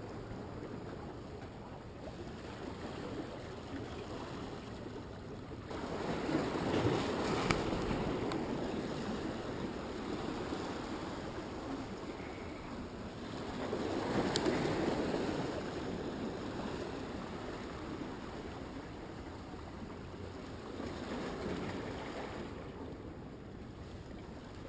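Ocean surf washing on the shore: a steady rush of water that swells three times, about seven seconds apart, as waves break and run in.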